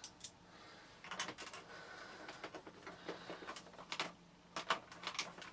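Light, irregular clicks, taps and scrapes of plastic vacuum cleaner housing parts being handled and fitted together by hand.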